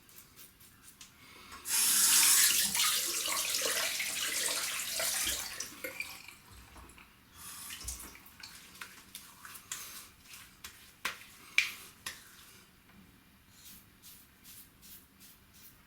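Tap running into a sink for about four seconds, then quieter splashing with a few sharp clicks.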